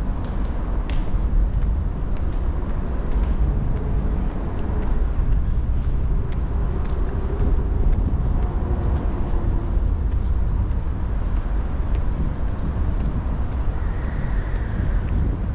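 City street ambience: a steady low rumble of road traffic, with scattered faint clicks and knocks.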